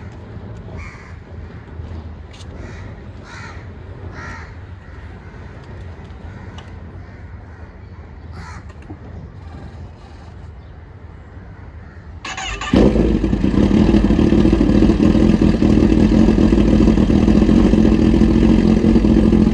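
Kawasaki ZX-10R's inline-four engine cranking briefly and catching about twelve seconds in, then idling loudly and steadily. Before it there is a quieter outdoor background with a few short calls.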